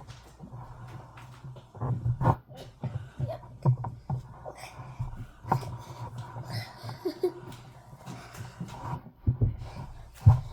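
Irregular clicks and knocks from markers and paper being handled on a table, with faint breathing and small vocal sounds.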